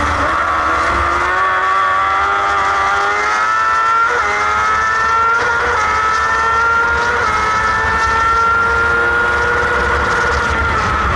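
Crosskart's motorcycle engine at racing speed, heard onboard, accelerating out of a corner and down a straight: its pitch climbs steadily, broken by quick gear changes at about four, five and a half and seven seconds.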